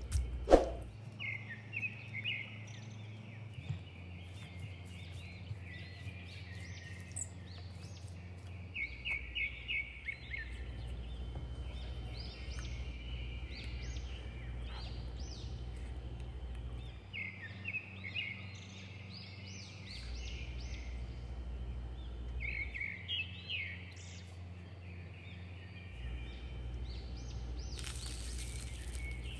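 Small birds chirping in repeated short trills over a low steady hum, with a sharp click about half a second in.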